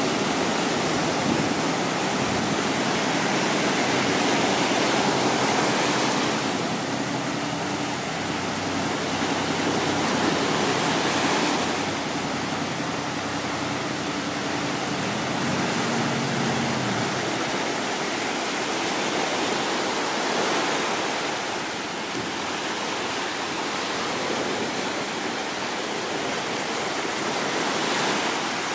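Sea surf washing onto the shore, a steady rush that swells and eases every few seconds, with a faint steady hum from about six seconds in until about seventeen seconds.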